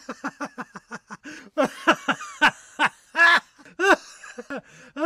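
A person laughing: a quick run of short ha-ha syllables, then louder, drawn-out peals of laughter.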